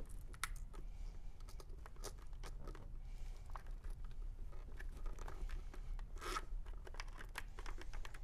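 Chin strap being adjusted on a football helmet: the strap slides and rubs through its plastic buckle against the helmet shell, giving faint scattered clicks and rubbing, with a brief louder scrape about six seconds in.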